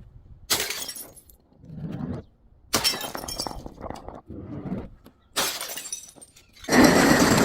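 Glass bottles being smashed and crushed: a series of sudden crashes with crunching and tinkling shards, the loudest and longest near the end.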